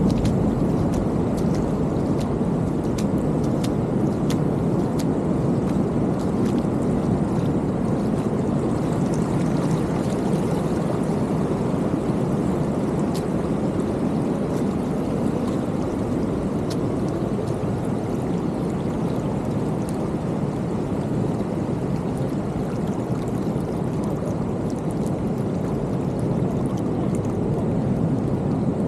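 Steady rush of ocean surf mixed with creek water flowing across the beach, at an even level throughout.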